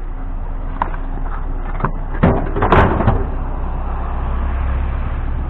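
A vehicle door being shut, a cluster of clunks about two and a half seconds in, with a few lighter clicks of the handle or latch before it. A steady low engine hum runs under it.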